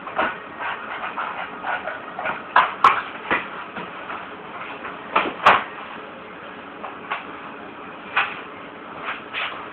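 Scattered knocks and clicks of objects being handled, with the heavy metal door of a safe swung near the end.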